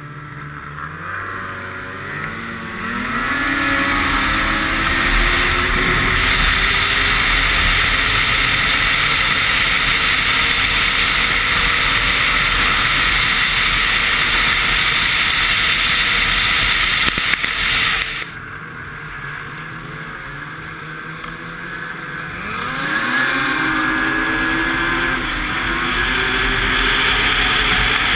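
Snowmobile engine accelerating hard, its pitch rising over the first few seconds, then holding at high revs under heavy wind rush on the camera microphone. About two-thirds through it eases off for a few seconds, then climbs in pitch again back to full throttle.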